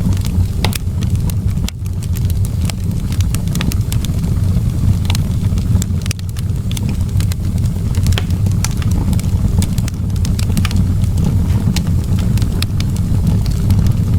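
Wood fire in a fireplace crackling: irregular sharp pops and snaps over a steady low rumble of the burning.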